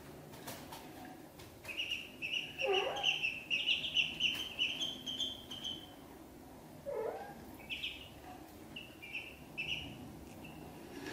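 Ducklings peeping in quick runs of short high chirps, with a pause in the middle. Two lower calls that fall in pitch come in between, about three and seven seconds in.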